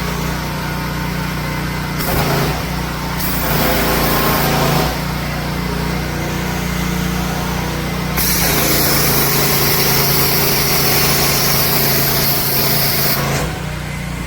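Pressure washer running with a steady motor and pump hum. About eight seconds in, a loud hiss of spraying water joins it and stops shortly before the end.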